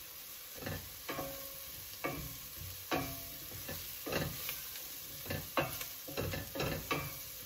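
Wooden spoon stirring and scraping diced onions, garlic and spices around a stainless steel stockpot, with a light sizzle of frying. Irregular scrapes and knocks of the spoon against the pot, coming faster in the second half.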